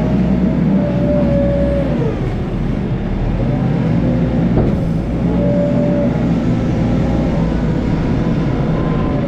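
Large wheel loader at work: its diesel engine runs steadily under load, with a whine that holds, drops away about two seconds in and rises again around five to six seconds in.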